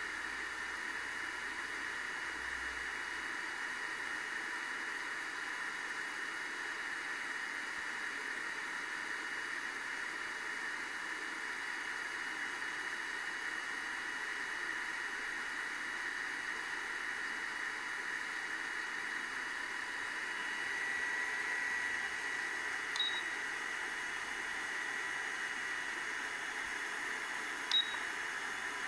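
Steady hiss with a faint, even high whine underneath. Two short, sharp clicks come near the end.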